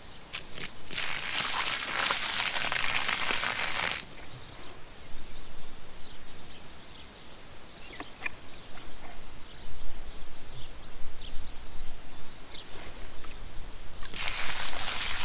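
Water being poured onto dry ground at the foot of a young tree: a rushing, splashing pour for about three seconds near the start and again near the end.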